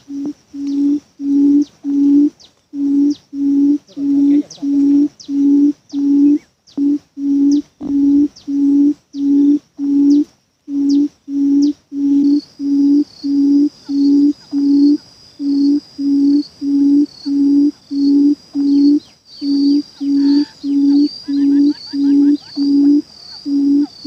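A buttonquail's low booming call: deep hoots repeated about one and a half times a second, in long runs with a few brief breaks.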